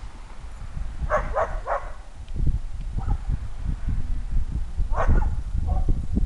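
Whippet giving short, high-pitched barks: three quick ones about a second in and another about five seconds in, aroused by a squirrel it cannot reach. A low rumble on the microphone runs under the later part.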